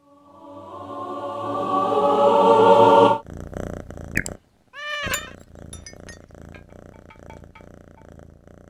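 A chord-like sound swells louder for about three seconds and cuts off suddenly. A cat then meows once, about five seconds in, and soft repeated clicks follow.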